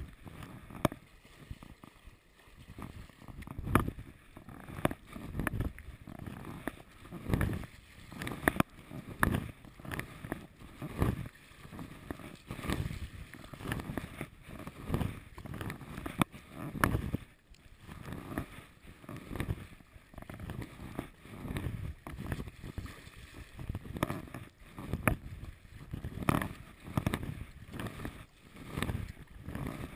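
Sea kayak paddle strokes and choppy water splashing against the hull, in a rough rhythm of about one splash a second.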